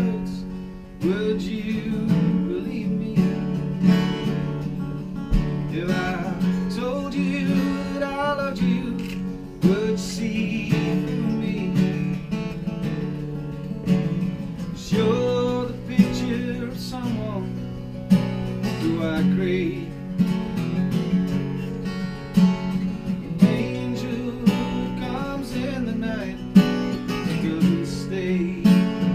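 Strummed acoustic guitar playing an unplugged americana song, with a wavering melody line over it.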